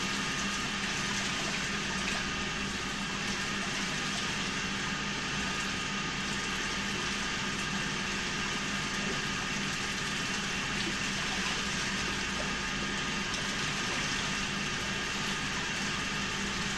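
Water running steadily, as in rinsing, with a low steady hum beneath it.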